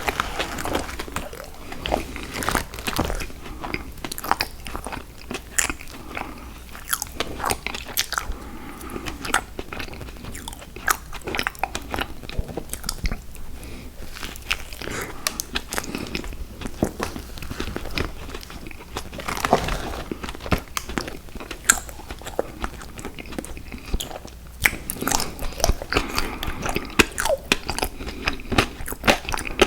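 Close-miked chewing and biting of sour gummy worms candy, wet squishy chews broken up by many quick crunchy clicks.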